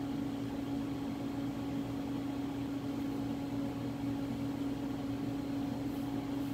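Haas CNC lathe standing idle with its spindle stopped: a steady low hum with an even hiss behind it.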